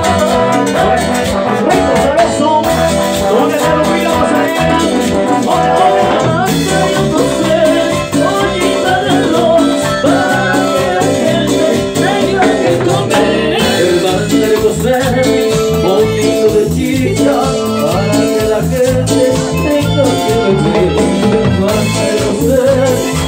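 Live band playing loud Latin dance music, with men singing into microphones over drums, hand percussion and electric guitar.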